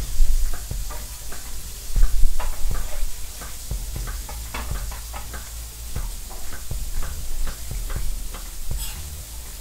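Chef's knife slicing through a chorizo log into rings on a wooden cutting board: a quick, irregular run of knocks, the loudest near the start and about two seconds in, over the steady sizzle of fish frying in a pan.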